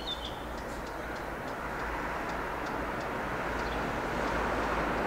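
Distant rumble of an approaching train, not yet in sight, growing slowly louder.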